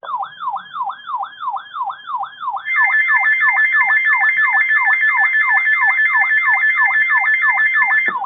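NOAA weather radio alert alarms going off. One sounds a siren-like tone that falls in pitch, repeating about three times a second. About two and a half seconds in, a second steady, high two-note tone joins it, and both cut off just before the end. The alarms are set off by a new special marine warning being issued.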